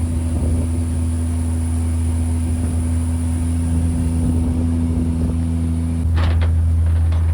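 Fishing boat's engine running steadily at a low drone, stepping up a little in level about six seconds in.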